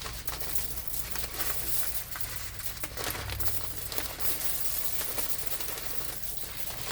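Dry red lentils being poured into a batch of chicken feed: a steady, dense rattle of many small hard grains falling and settling.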